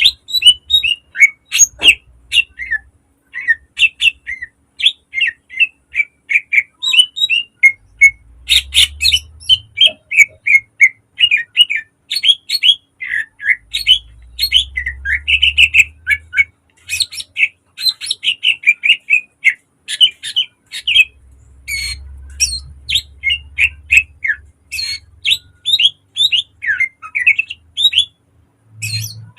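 Cucak ijo (greater green leafbird) singing: a fast, nearly unbroken run of sharp, short chirps and whistled notes, repeated several times a second with only brief gaps.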